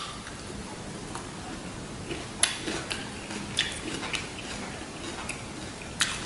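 Close-miked eating sounds of shrimp and pork fresh rice-paper rolls: scattered sharp wet clicks and smacks of chewing, the loudest about two and a half seconds in and again near the end.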